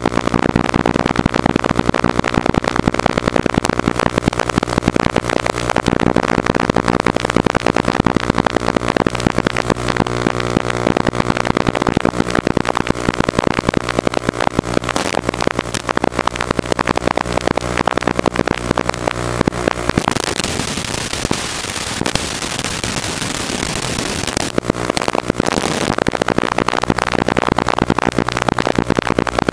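Small FPV quadcopter's electric motors buzzing and wavering in pitch as it flies, heard with a dense crackle. About twenty seconds in the buzz gives way to a few seconds of plain hiss, then comes back.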